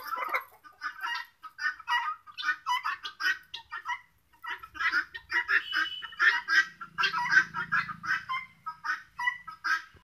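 Helmeted guineafowl calling: many short, harsh calls in quick succession, with a brief pause about four seconds in.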